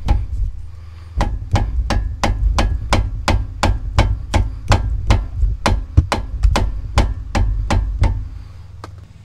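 Steady, repeated hammer blows on a steel pickle fork (ball-joint separator) wedged under a lower ball joint, about two to three strikes a second, to pop the ball joint stud out of the steering knuckle. The joint is stuck and has not yet released. The strikes pause briefly near the start and stop about a second before the end.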